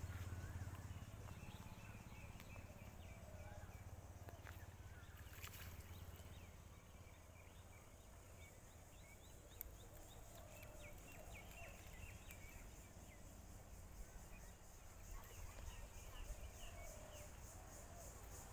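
Near silence: quiet outdoor ambience with a faint low rumble and scattered small high chirps, likely birds.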